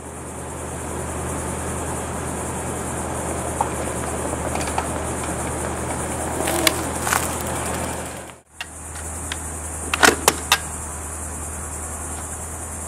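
An electric fat bike rolling along a dirt trail, a steady rushing noise with a few knocks, over a constant high insect buzz. After an abrupt cut the rolling stops and the buzz goes on, with a few sharp clicks.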